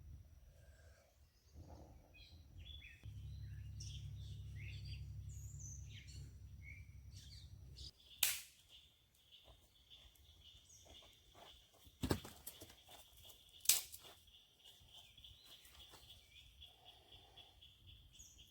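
Birds chirping in short calls, with a low rumble for a few seconds. Three sharp clicks or knocks stand out as the loudest sounds, and a steady high-pitched buzz comes in about halfway through.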